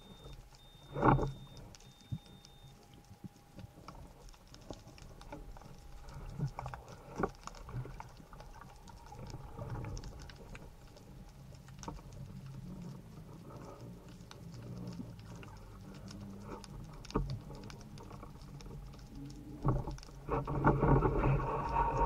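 Underwater ambience heard through an underwater camera: a steady crackle of many faint clicks over a low water rumble. A sharp thump comes about a second in, and a louder rushing noise near the end.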